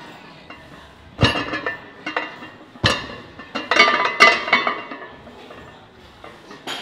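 Cast-iron barbell plates clanking on the bar as a loaded barbell is lifted and rowed: two sharp metal knocks a little over a second apart, then a quick run of ringing clinks.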